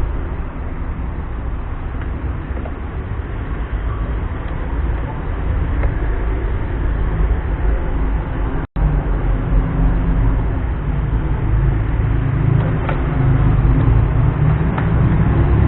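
Steady low rumbling background noise, cut off for a split second about nine seconds in, with a few faint ticks near the end.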